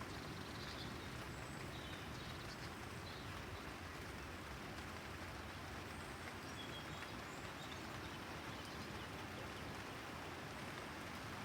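Steady rain falling on a house terrace, an even, constant patter.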